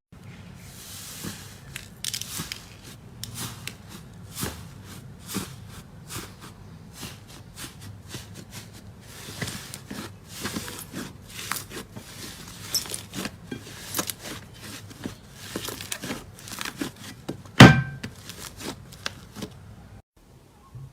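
Slime being handled: a steady run of small wet clicks, crackles and pops as it is pressed and stretched, with one much louder smack about three-quarters of the way through.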